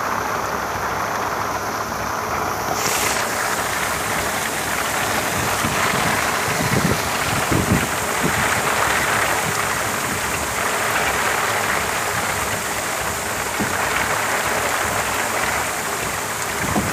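Heavy typhoon rain and wind at sea: a steady hiss of downpour, with gusts rumbling on the microphone around the middle.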